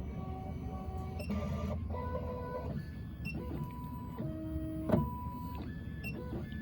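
Miracle A9 key cutting machine's stepper motors whining as it drives its probe through an automatic calibration measurement on the adapter, the pitch stepping up and down as the axes move, with a sharp click about five seconds in.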